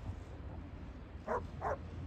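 A dog barks twice in quick succession about a second and a quarter in, over a steady low hum.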